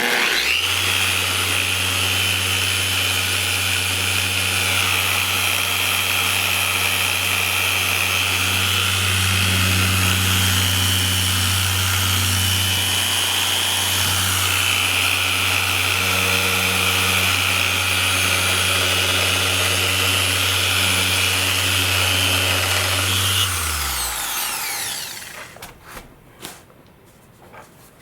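Electric power buffer running steadily while it polishes compound on a plastic model-glider fuselage. It comes on at the start, holds a steady motor hum for over twenty seconds, then is switched off and winds down with falling pitch near the end.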